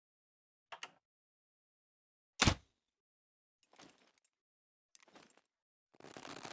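Makeshift crossbow handled and shot: a quick double click, then one sharp, loud crack about two and a half seconds in, followed by two brief soft rustles and a longer scraping noise near the end.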